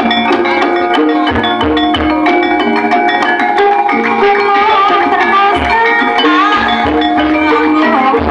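Javanese gamelan music played loud over a sound system: ringing metallophone notes over hand-drum strokes, with a sliding melodic line coming in about five seconds in.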